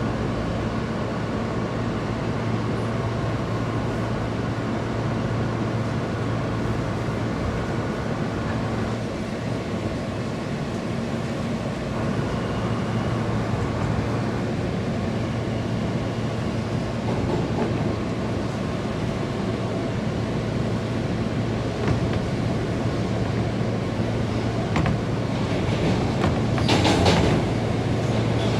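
R160A New York City subway train running between stations: a steady rumble of wheels on rail and traction motors with a constant low hum, with a few sharper clacks near the end.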